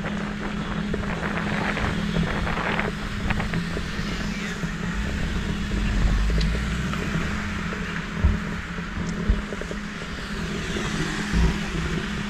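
Steady low hum of the Removu R1 gimbal's motors, picked up by the GoPro's microphone, over city street traffic noise. Three short low thumps come in the second half.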